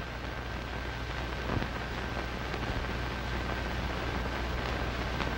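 Surface noise of an old film soundtrack: steady hiss and crackle with a low hum and a few faint clicks, and no narration or music.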